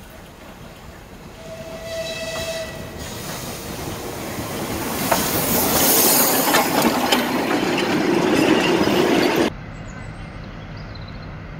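Soviet L-class steam locomotive sounding one short whistle blast about a second and a half in, then drawing near and passing close with a train. Steam hisses and the wheels click over the rail joints, growing louder until the sound cuts off abruptly near the end, leaving a quieter steady low rumble.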